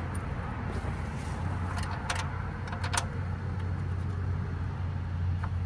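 A few light metallic clicks of tools and bolts as a new top motor mount is worked into place, over a steady low hum.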